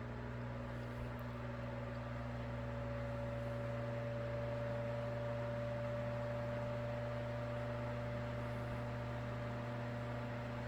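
A 1960s Knapp-Monarch-built Sears Kenmore 12-inch table fan running on medium speed: the shaded-pole motor's moaning hum over the rush of air through the blades. The motor's tone rises slightly over the first few seconds as it comes up to speed, then holds steady.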